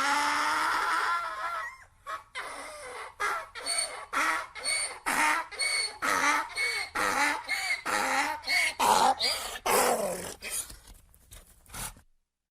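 Donkey braying: a long drawn-out pitched call, then a run of rapid alternating hee-haw strokes, about two a second. The strokes weaken and break off near the end.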